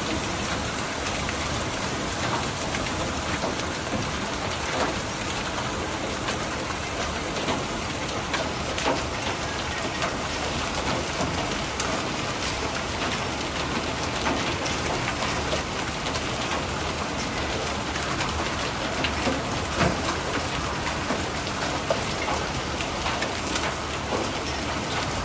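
Hailstorm with heavy rain: a dense, steady hiss of rain with many sharp ticks of hailstones striking.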